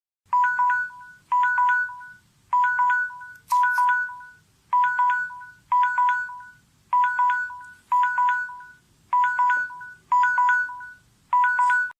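Samsung phone alarm tone: a short cluster of quick electronic beeps on two pitches, each cluster fading out, repeated eleven times about once a second.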